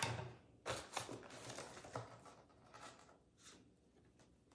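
Paper and cardboard rustling in a few short, irregular bursts as instruction sheets are laid down and the contents of a cardboard kit box are handled.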